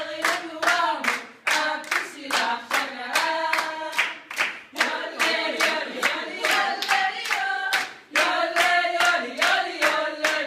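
A mixed group of young voices singing together without instruments while clapping steadily on the beat, about three claps a second, with short pauses between sung phrases.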